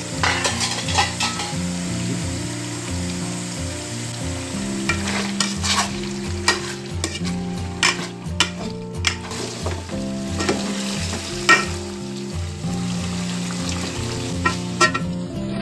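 Pork mesentery sizzling in its own rendered fat in an aluminium pot, the broth almost boiled away. A metal slotted spoon stirs and turns the pieces, scraping and clicking against the pot again and again.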